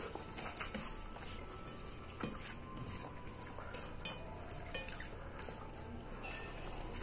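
Fingers mixing and scooping soft rice on a steel plate: scattered light clicks and scrapes against the metal, with soft squishing of the food.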